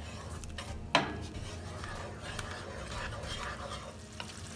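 A wooden spoon stirring a thick, creamy mushroom sauce in a large pan as it simmers and thickens, scraping and sloshing over a low sizzle. There is one sharp knock about a second in.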